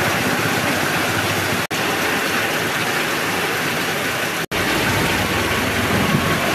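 Heavy rain falling, a steady hiss, with a vehicle engine running on the road in the last couple of seconds. The sound cuts out for an instant twice.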